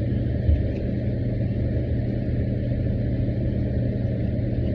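Car engine idling, a steady low rumble and hum heard from inside the cabin, with one short thump about half a second in.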